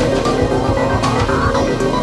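Electronic background music with a steady beat and a repeating rising synth line.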